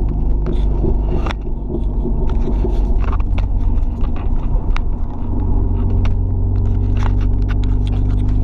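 Dodge Neon SRT-4's turbocharged four-cylinder with side-exit exhaust droning steadily under way, heard from inside the cabin. Many sharp clicks and scrapes of the camera being handled sound over it.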